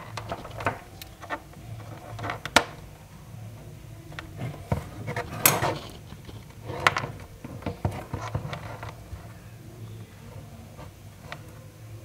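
Close handling noise of a wired earphone cable and smartphone being handled: irregular light clicks, knocks and rustles, with a low steady hum under them.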